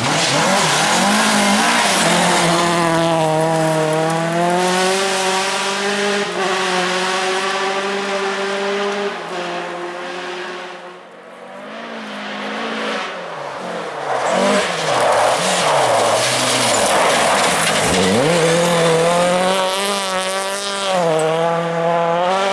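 Rally car engine at full throttle on a special stage, the revs climbing and dropping again and again through gear changes and braking as the car passes. The sound drops away briefly about halfway through, then comes back with more rising and falling revs.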